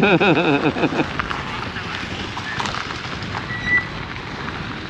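A person's voice swooping rapidly up and down in pitch for about the first second, then a steady rushing noise with faint crackle.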